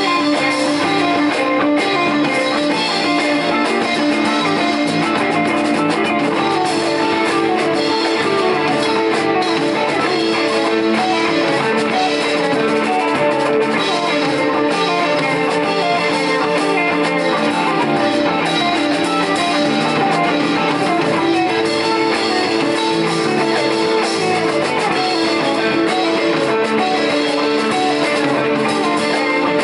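Live rock band playing an instrumental passage: two electric guitars, electric bass and drum kit, with no singing.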